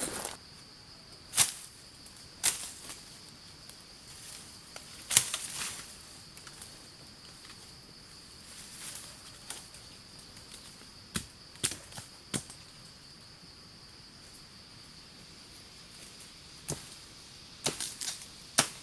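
Steady high-pitched insect drone. Over it come irregular sharp snaps and cracks, about a dozen, some followed by a short rustle, the loudest around the first five seconds.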